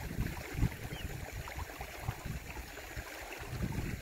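Flowing river water with an uneven low rumbling underneath.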